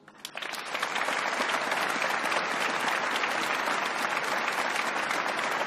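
Large audience applauding. The clapping breaks out right at the start, builds within the first second and then holds steady.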